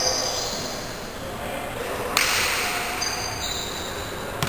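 A basketball hitting hard twice, about two seconds in and again near the end, each ringing on in a large echoing gymnasium, over the indistinct voices of players.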